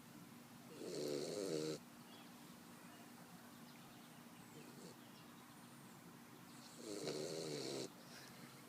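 Boxer puppy snoring: two loud snores, each about a second long and cutting off abruptly, about six seconds apart.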